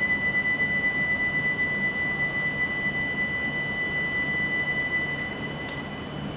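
Station platform departure signal before a Shinkansen leaves: a steady, high, ringing tone that sounds for about six seconds and then cuts off, over a low steady hum.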